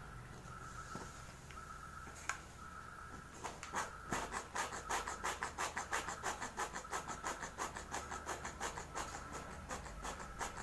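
Wet squelching as oil is squeezed from a plastic bottle into oil-soaked hair. It comes in a fast, even run of short squishes, about four a second, starting around three and a half seconds in. A faint steady high hum runs underneath.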